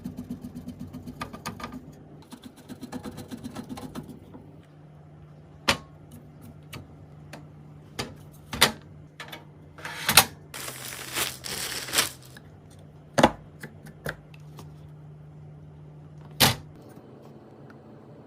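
Hands fitting computer parts: quick runs of clicks in the first few seconds, then scattered clicks and knocks and a brief scraping or rustling stretch, over a faint steady low hum.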